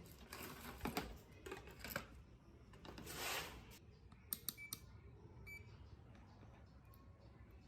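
Scattered small clicks and taps of handling work on a bench, with a brief hiss about three seconds in.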